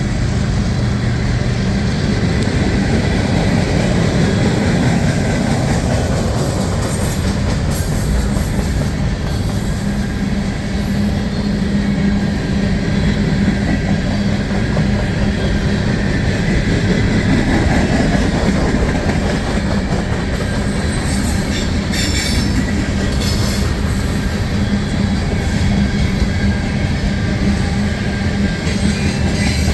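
Freight cars of a long CN train rolling past: a steady rumble of steel wheels on rail with some wheel squeal.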